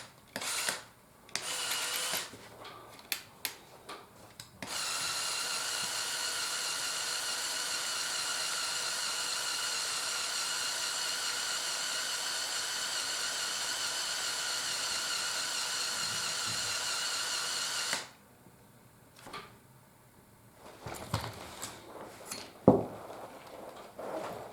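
Small electric motor of a Mould King building-block set running steadily with a high whine for about thirteen seconds, driving a function of the model, and stopping suddenly. Plastic bricks clicking as the model is handled before and after.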